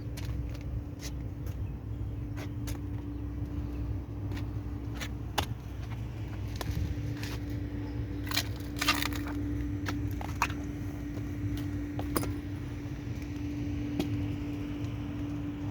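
Steady machine hum with a low rumble, overlaid by scattered sharp metallic clicks and clinks, clustered about eight to nine seconds in.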